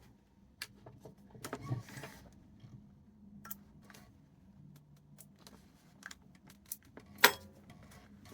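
Handling of a leather handbag and its metal hardware: scattered light clicks and small metallic rattles, with one sharp click about seven seconds in.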